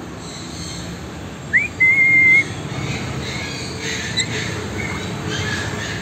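African grey parrot whistling: a short upward chirp, then one loud steady whistle lasting about half a second, followed by a few fainter chirps and whistles.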